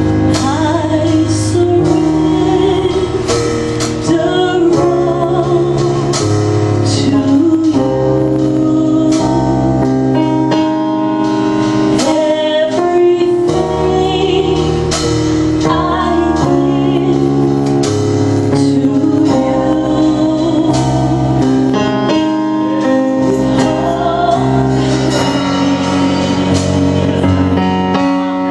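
Gospel worship song: a woman singing with vibrato over keyboard chords and a bass line.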